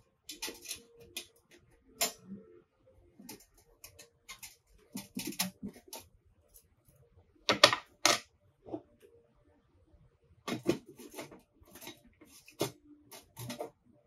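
Stainless-steel parts of a small folding B-6 grill being fitted together by hand: a string of sharp metallic clicks, taps and clinks, with two loud clanks about seven and a half and eight seconds in.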